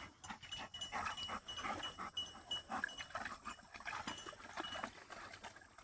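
Several working dogs panting and splashing as they wade in shallow water to cool off after a run; the sounds come as many short, irregular bursts.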